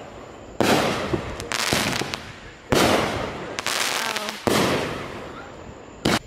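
Aerial firework shells bursting overhead: about five loud bangs a second or two apart, each fading out over a second or more, with a few sharp crackles in between.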